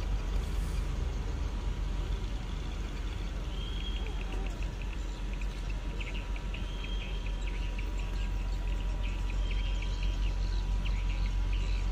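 Steady low rumble of idling truck and ship engines, with short high squeaks or chirps a few times in the middle.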